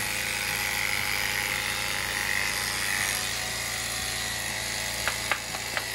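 Handheld electric horse clippers running with a steady buzzing whine as they clip a pony's head. The whine fades a little about three seconds in, and a few sharp clicks come near the end.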